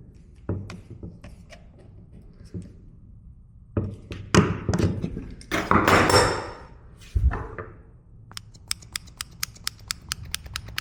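Hand work on a pitcher rinser's valve assembly as it is tightened into place: scattered knocks and scrapes of parts being handled. Near the end comes a quick run of sharp clicks, about five a second.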